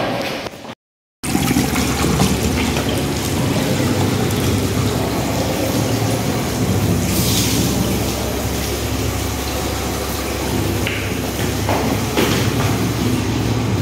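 Tap water running steadily into a washbasin, a constant rushing with a low hum beneath it. The tap is left running while someone brushes his teeth. The sound starts after a brief silent break about a second in.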